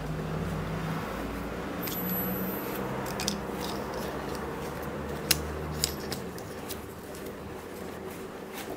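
A small plastic spinning-top toy handled on a wooden tabletop: a few light plastic clicks and taps over a low steady hum that fades out about six seconds in.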